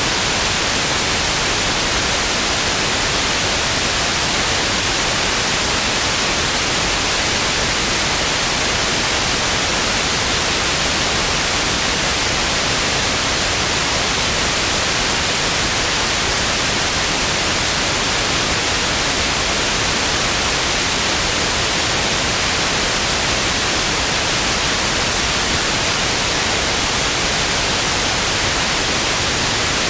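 Television static: a steady, loud hiss of white noise, even and unchanging.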